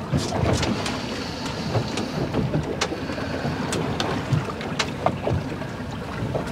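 Water slapping and splashing against the hull of a small fishing boat at sea, with irregular short splashes and low thumps, and wind.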